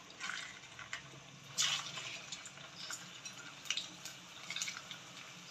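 Cornflour-dusted potato fingers sizzling as they are dropped one at a time into hot oil in a kadai, a short burst of sizzle with each one. The oil is hot enough for frying.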